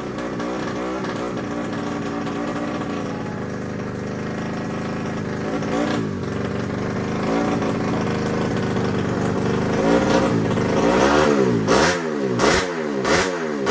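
Race motorcycle engine running at a fast idle with a wavering pitch, then revved in quick throttle blips, each rising and falling, a little under two a second over the last few seconds.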